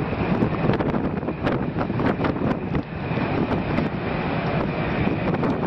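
Wind buffeting the microphone on the open deck of a ferry under way, a steady rush broken by sharp gusts, with a faint steady high whine underneath.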